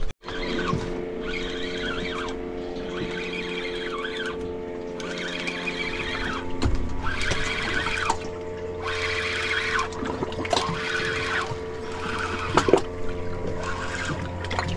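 Background music: a held chord under short melodic phrases that come and go about once a second.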